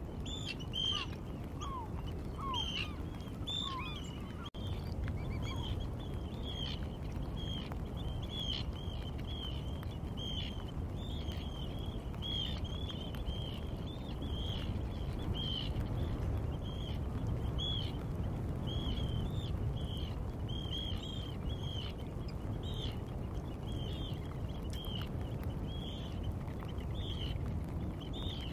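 Wadden Sea shore ambience: birds calling over and over in short, high notes, about one or two a second, over a steady low rush of background noise. A few lower, falling calls come in the first few seconds.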